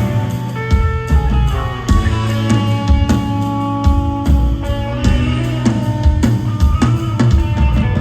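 Live band music: drum kit with kick and snare keeping a steady beat under held guitar and keyboard notes.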